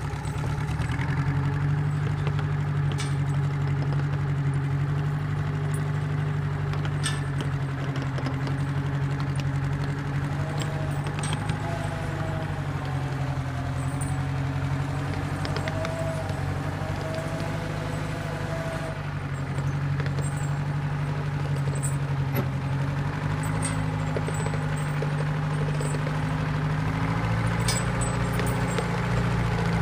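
Austin-Western motor grader's engine running steadily at low speed, with a few faint clicks; its speed rises a little near the end.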